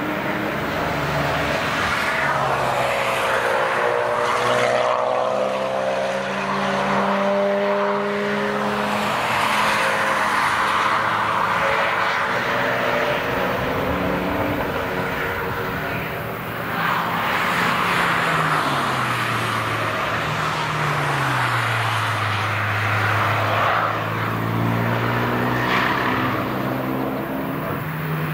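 Car engines running hard on a racetrack as cars pass one after another, the engine notes rising and falling through throttle and gear changes.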